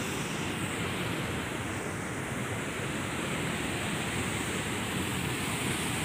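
Water from a concrete dam spillway pouring down and splashing into the river below, a steady rushing.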